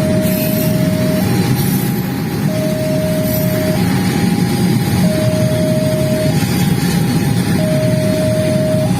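Railway level-crossing warning alarm sounding. It alternates between a lower and a higher tone, each held for about a second and a quarter, over a loud steady low rumble.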